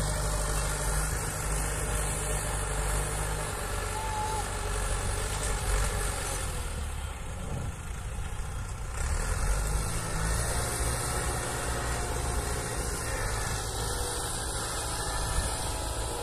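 Tractor engine running steadily, easing off briefly about midway and then picking up again.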